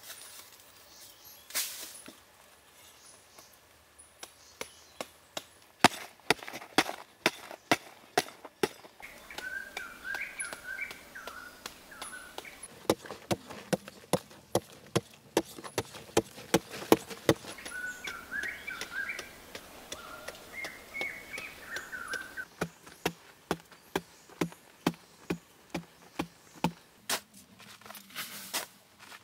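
Short-handled hoe chopping into dry sandy soil, a steady run of sharp strikes about two a second from about six seconds in, as a pit is dug by hand. Birds chirp now and then behind it.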